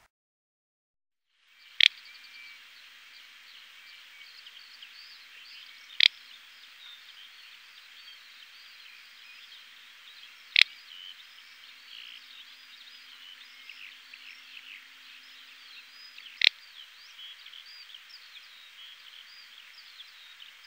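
Countryside nature ambience, starting about two seconds in: a steady hiss full of faint, high, quick chirps. It is broken four times by a single sharp, loud chirp or click, a few seconds apart.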